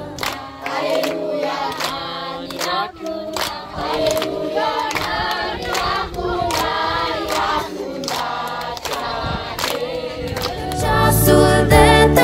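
A group of children singing together, with hand claps. Near the end, backing music with a deep bass comes in.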